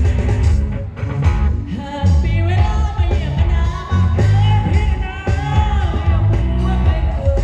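Live band music played loud through a Thai sound truck's speaker stacks (SR18 bass cabinets, Thai Audio TD-112 mid cabinets), with heavy pulsing bass and electric guitar. A singer comes in about two seconds in with a wavering, ornamented vocal line.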